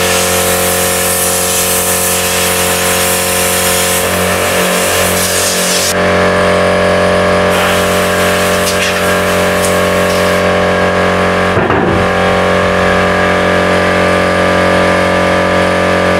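Compressed air hissing from a blow gun as it blasts dust and sand out of a steel brake drum, over a steady machine hum. The hiss is strongest for the first six seconds or so, then eases while the hum carries on.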